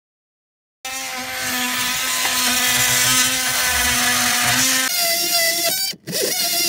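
Loud cordless power tool running against a car's steering column, a steady high whine. It starts about a second in, changes pitch near five seconds, and stops briefly and starts again near the end.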